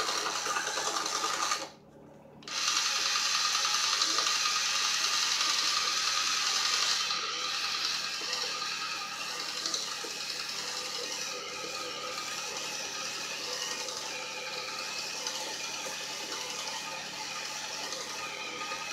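The small 3-volt electric motor and gear drive of a popsicle-stick Theo Jansen walking machine running as its legs walk. It drops out for a moment about two seconds in, starts again, and runs a little quieter after about seven seconds.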